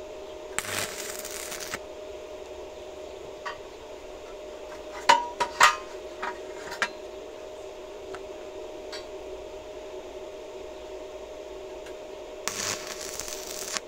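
Stick (MMA) welding arc with a 2.5 mm Kjellberg electrode at 80 A, struck and crackling for about a second twice: a tack weld just after the start and another near the end. In between, a few sharp metal clanks and knocks as the steel tube pieces are handled.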